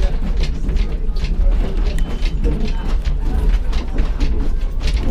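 Heidelberg Bergbahn funicular car running along its track: a steady low rumble with sharp mechanical clicks and rattles about two or three times a second.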